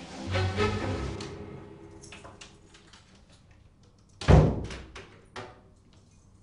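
A music cue dies away, then about four seconds in a wooden door gives one heavy thud with a short ringing tail, followed about a second later by a few light clicks of its handle or latch.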